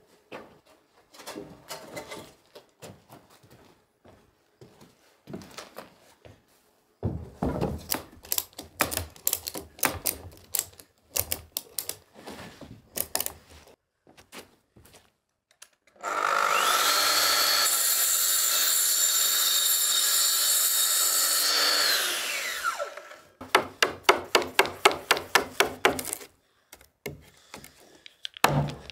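Knocks and taps on timber, then a plunge saw on a guide rail runs for about six seconds with a steady high whine and winds down. A quick run of hammer blows on a chisel follows, cutting a notch in a timber beam.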